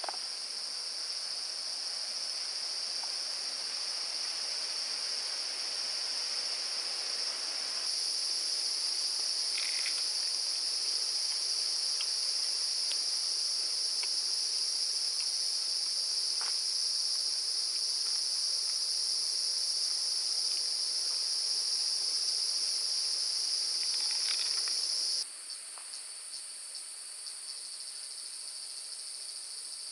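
Insect chorus in the forest: a steady, high-pitched shrill drone. About 25 seconds in the loudest insect stops abruptly, leaving a quieter, pulsing chirr.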